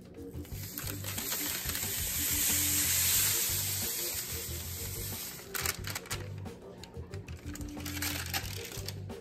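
Dry, sand-like granular ballast pouring off parchment paper into a plastic tub: a rushing, hissing pour that swells to a peak and trails off after about five seconds. Then come crinkles and taps as the paper is handled, with faint background music under it all.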